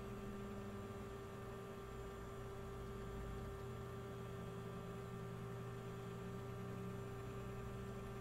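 Steady hum of several unchanging tones, one mid-low tone the strongest, with no other events.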